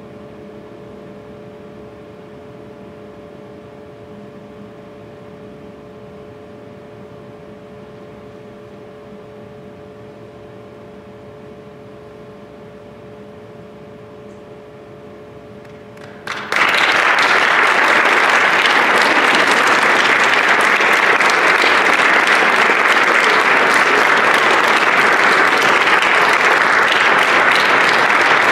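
Soft, steady final notes of a piano and violin piece linger for a while. About halfway through, audience applause breaks out abruptly and carries on loudly.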